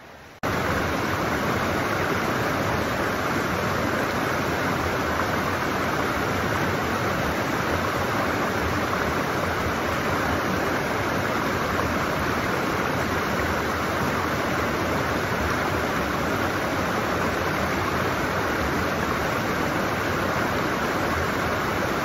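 Mountain creek rushing over boulders in white-water rapids: a loud, steady water noise that starts suddenly about half a second in.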